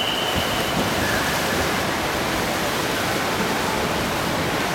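Water polo players sprinting for the ball, a steady rush of churning, splashing water. A single held referee's whistle blast over the first second starts the sprint.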